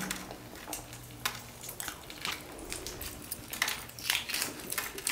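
Shell being peeled by hand off a hard-boiled egg: an irregular scatter of small crackling clicks.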